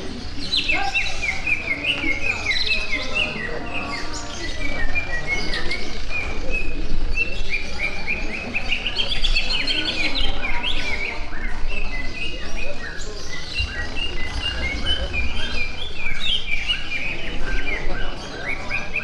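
Several caged songbirds singing at once, a dense stream of overlapping chirps, warbles and whistles with no break.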